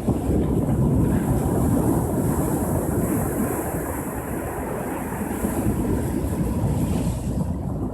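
Ocean surf washing onto a beach: a low rumbling wash of breaking waves that swells over the first few seconds, then eases off.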